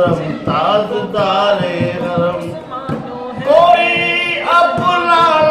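A man singing an Urdu devotional song in praise of the Prophet (a naat), drawing out long held notes. He accompanies himself with hand strokes on a dholak barrel drum.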